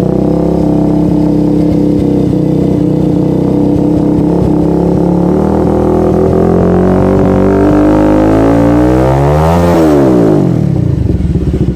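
Bajaj Avenger's single-cylinder engine running through a custom double-barrel exhaust. It runs steadily at first, is revved up gradually for about four seconds, and then drops quickly back to a pulsing idle near the end.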